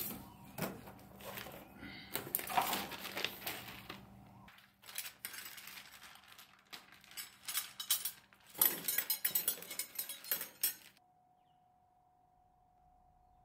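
Metal tools and parts clinking and clattering in short bursts during work on the car, stopping about eleven seconds in.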